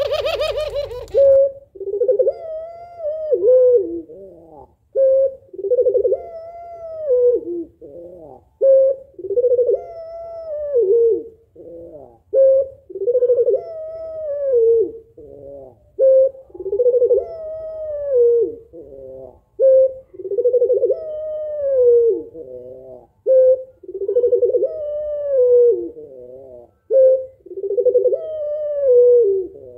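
Female puter pelung, a domestic ringneck (Barbary) dove, cooing to call a male: a short note, then a long coo that rises and falls away, repeated about every three and a half seconds.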